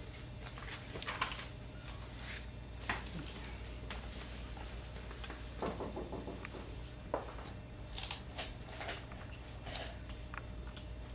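Steady low hum with scattered faint rustles and small clicks of people shifting and handling things.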